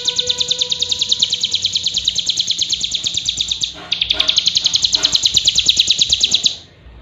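A cigun songbird singing a fast, even trill of high notes, about ten a second. The trill breaks off briefly about four seconds in and stops near the end.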